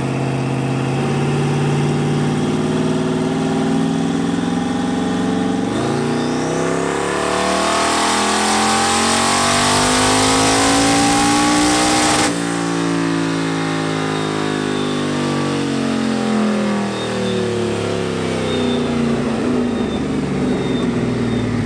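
Twin-turbo LS V8 with a BTR Stage 3 turbo cam, in a green Fox body Mustang, making a wide-open pull on a chassis dyno. It runs steadily, then from about six seconds in the revs climb steadily with a high whistle rising briefly at the start of the pull, until the throttle is shut sharply about twelve seconds in and the revs wind down.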